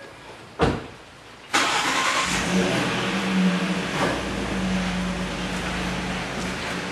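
A single thump about half a second in, then an engine starts about a second and a half in and settles into a steady idle.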